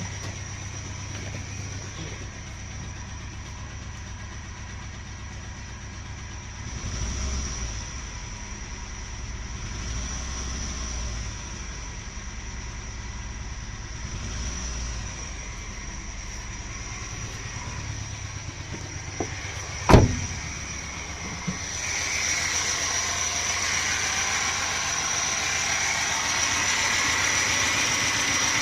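Nissan NP200 engine running with a steady high whine over it: the bad sound that is still there after one pulley on the accessory belt drive has been replaced. There is a single sharp knock about two-thirds of the way through, and the sound grows louder and brighter shortly after.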